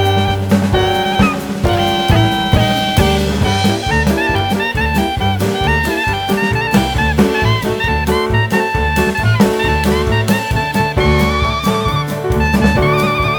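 Background music: an upbeat jazz-style tune with horn or saxophone lines over bass and drums.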